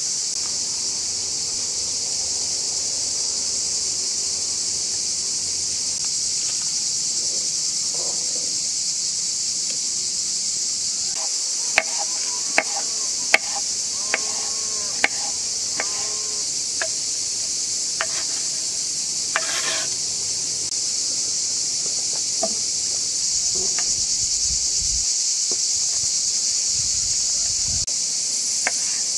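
Steady high-pitched insect chirring. Over it, a quick run of sharp knife chops through cucumber onto a wooden cutting board about twelve seconds in, and a few scattered taps later as tomatoes are cut.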